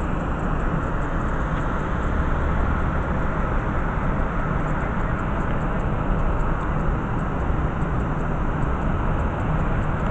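Water from a plaza waterfall fountain pouring and splashing in a steady rush.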